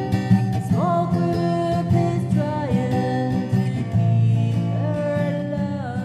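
Background music: a song with plucked acoustic guitar and a singing voice.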